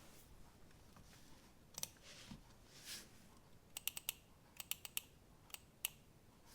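Scattered keystrokes on a plateless Arc60 mechanical keyboard with lubed Cherry MX Black switches: a single click, then a quick run of about eight clicks and two more near the end, with a few faint rustles in between.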